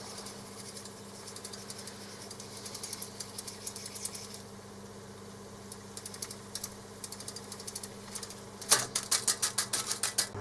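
Cossor CR 1603A reel-to-reel tape recorder winding tape at speed: a steady hum with irregular clicking from the tape and transport, turning near the end into a fast run of louder clicks, about eight a second. The uneven fast wind comes from a cracked pot-metal idler wheel.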